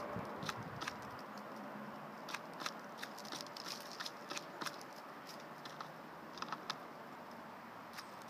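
Woodpecker pecking at a wooden bird feeder: irregular sharp taps, a couple a second with short pauses.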